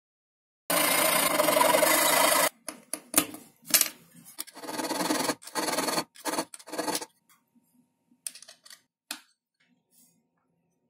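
Needle file scraping a small brass bushing: a long, continuous scrape about a second in, then a run of shorter strokes. A few light clicks follow near the end.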